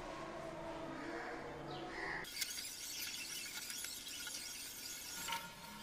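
Metal basin hanger bolts being screwed by hand into plastic wall plugs (rawl plugs) in a tiled wall. A faint squeak runs for about two seconds, then scratchy clicking of the threads turning in the plugs.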